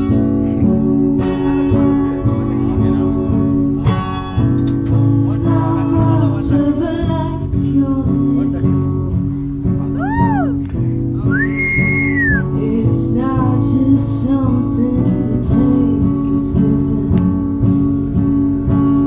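Live music from a small band: an amplified acoustic-electric guitar playing with sustained chords, and a few high sliding notes that rise and fall about ten and twelve seconds in.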